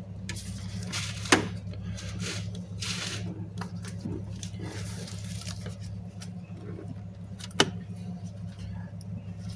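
Steady low hum of a V6 24-valve engine running in the background, under bursts of rubbing and scraping from hand work on hoses and pipes in an engine bay. Two sharp clicks stand out, one about a second in and another about six seconds later.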